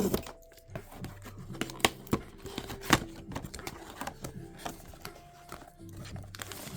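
A small cardboard blind box being torn open and its packaging handled: a short ripping noise at the start, then scattered clicks, taps and crinkles of cardboard and plastic.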